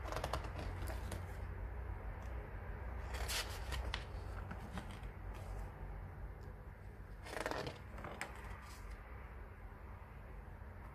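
Pages of a graphic novel being turned by hand: three brief paper swishes, about a second in, a few seconds later and near the end, with small paper ticks between them over a steady low hum.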